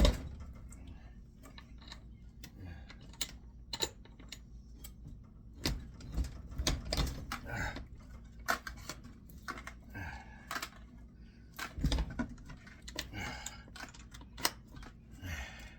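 Irregular metallic clicks, taps and knocks of hand tools prying at an electric motor's stator while copper windings are pulled out, with a sharp knock at the start and busier clusters about halfway through and near the end.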